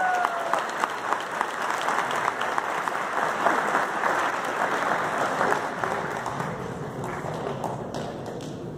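Audience applauding, the clapping dense at first and dying away over the last few seconds.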